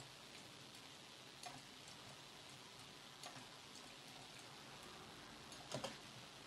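Near silence: a faint steady hiss with a few soft clicks of a computer mouse, one about a second and a half in, one a little after three seconds, and a louder double click near the end.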